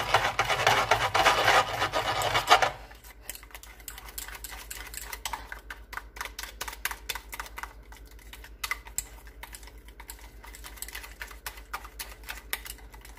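Wire whisk beating a thick cream cheese filling in a stainless steel bowl: loud, fast scraping against the metal for the first few seconds, then lighter whisking with quick, irregular clicks of the wires against the bowl. A low steady hum sits underneath.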